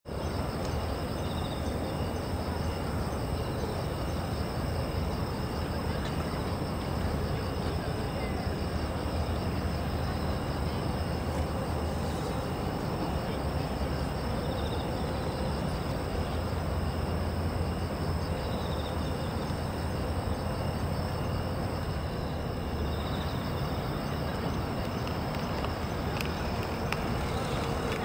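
Night insects trilling steadily, with soft chirps recurring every few seconds, over a steady low rumble of city traffic.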